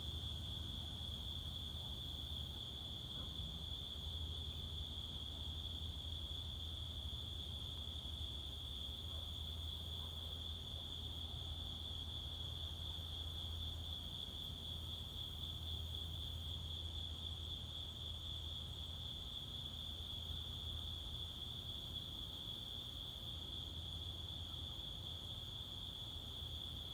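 Chorus of night insects trilling steadily at one high pitch, with a low steady hum underneath.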